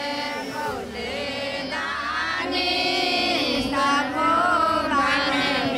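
A group of women singing a devotional prayer song together in long, held, wavering notes, a plea to the river in flood.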